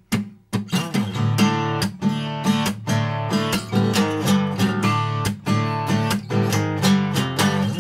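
Acoustic guitar strumming the opening chords of an unplugged song in a steady, even rhythm.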